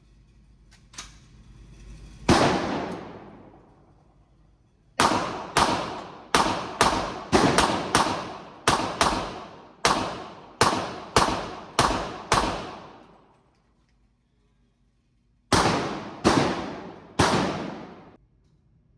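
Gunshots firing: a single shot, then a rapid string of about a dozen shots roughly two a second, and after a short pause three more. Each shot rings out briefly.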